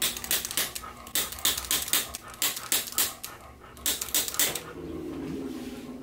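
Handheld chiropractic adjusting instrument tapping along the back of the neck: a quick run of sharp clicks, about five a second, that stops about four and a half seconds in.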